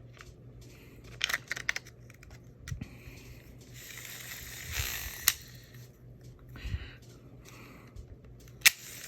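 Small clicks and light rubbing of a Shimano SLX DC baitcasting reel's parts being handled and fitted back together, with a quick run of clicks early, a sharp click about five seconds in and another near the end.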